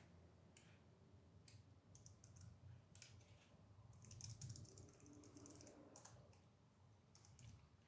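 Faint computer keyboard typing: scattered single keystrokes, with a short quick run of them about four seconds in.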